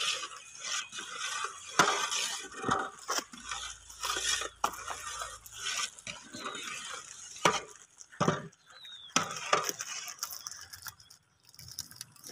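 Long metal ladle stirring spiced liquid in a large aluminium cooking pot, knocking and clinking against the pot's sides at irregular moments.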